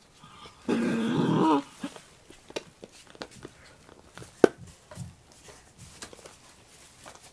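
Adult Shiba Inu growling and snarling once for about a second, a warning to a puppy trying to get at her chew, rising in pitch at the end. Scattered small clicks and taps follow, one sharp click about halfway through.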